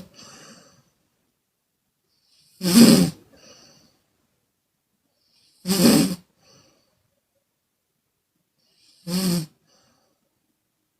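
A woman snoring: three short snores about three seconds apart, each followed by a faint breath, with silence between them.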